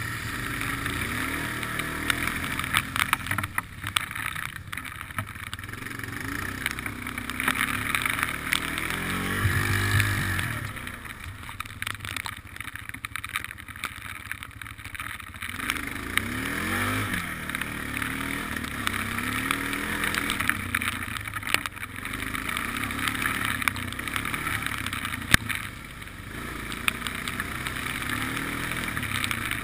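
ATV (quad) engine running on a muddy trail, its revs rising and falling again and again, with scattered knocks and clatter from the rough ride.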